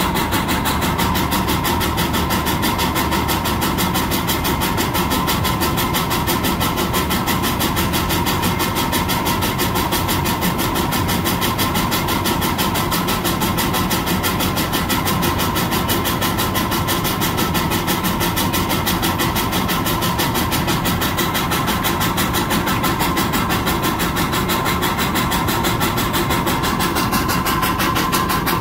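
Russell steam traction engine running steadily under load, belted to a paddle-bladed fan, with a rapid, perfectly even exhaust beat and no change in speed. A steady tone rides over the beat.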